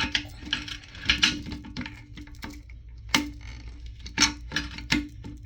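Irregular clicks and scrapes of plastic as a stuck plastic nut on the bottom of a toilet tank is worked at, the grip slipping rather than turning it. A steady low hum runs underneath.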